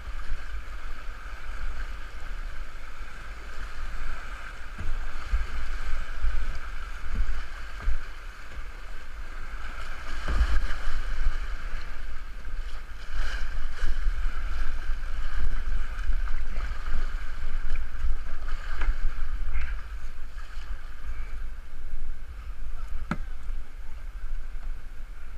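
Rushing water of a river in flood, heard from a kayak running its rapids, with a heavy low rumble of wind on the microphone. Occasional sharp splashes stand out, loudest about ten seconds in.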